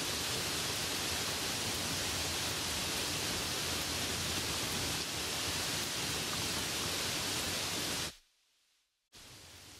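Light rain sound effect: a steady, even hiss of rain that cuts off abruptly about eight seconds in, then after about a second of silence comes back much quieter.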